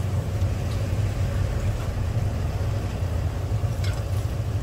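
Hotteok frying in a shallow pool of oil on a griddle, over a steady low hum. A spatula clicks against a pancake about four seconds in.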